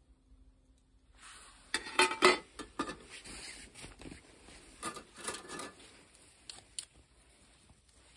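Aluminium mess tins and a lid clattering and knocking as they are set down and shifted on a camp table, a string of sharp clinks, loudest about two seconds in, with rustling between them.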